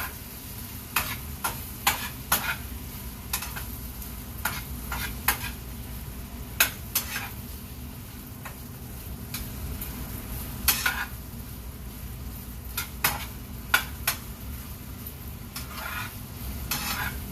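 A utensil stirring food in a frying pan, with sharp, irregular clinks and scrapes against the pan over a steady sizzle.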